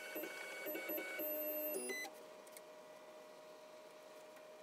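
Axis stepper motors of a Tormach PCNC 1100 CNC mill whining as the table is jogged to locate the part: several short moves, each tone gliding up, holding and gliding down. They stop about two seconds in, leaving a faint steady hum.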